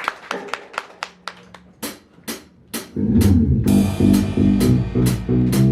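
Live rock band starting a song: a few seconds of light, evenly spaced drum-kit ticks, then about three seconds in the full band comes in loud, with drums, bass guitar and electric guitar.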